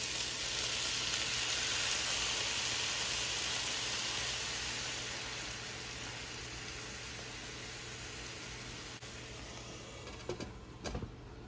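Brussels sprouts sizzling in a hot nonstick frying pan. The sizzle flares up as water is sprinkled in, then slowly dies down. Near the end come a couple of clinks as a glass lid is set on the pan.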